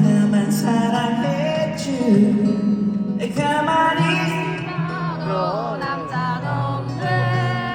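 Live pop music at a concert sound check: a singer sings a melody with vibrato and pitch runs over band accompaniment with steady bass notes, heard through the PA in a large venue.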